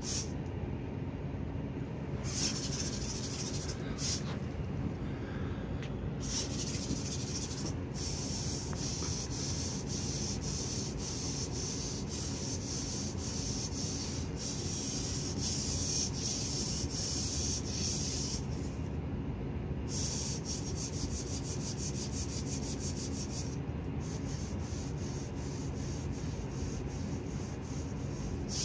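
Servo motors of a 3D-printed quadruped robot dog buzzing as its legs shift through programmed moves. A high, scratchy hiss of rapid ticking cuts in and out in long stretches over a steady low hum.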